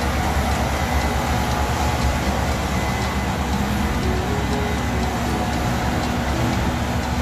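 Case IH combine harvester running, its diesel engine and threshing machinery making a steady low drone as it moves off to harvest another row of soybeans.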